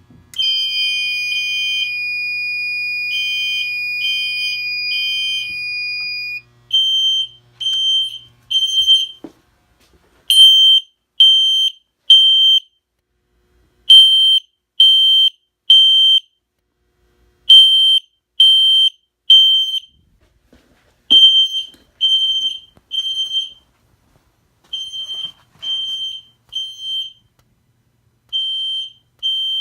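Fire alarm horns sounding in alarm, beeping in the temporal-three pattern: three short beeps, a pause, then three more. For the first six seconds a separate steady alarm tone sounds alongside them, then cuts off.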